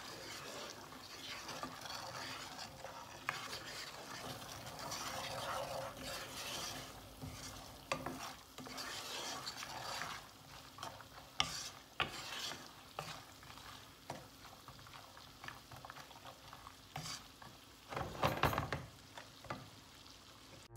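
Peeled almonds frying in oil and butter in a pan, sizzling while a wooden spoon stirs them, with scraping and light knocks of the spoon against the pan; the stirring is busiest near the end.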